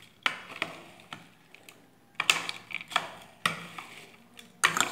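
A plastic spoon stirring puffed rice and peanuts in a glass bowl: irregular taps and scrapes of the spoon against the glass, about half a dozen sharp knocks spread through the stirring.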